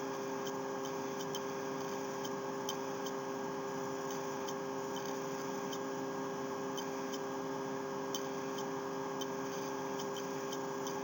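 Faint, irregular light clicks of a computer mouse over a steady electrical hum.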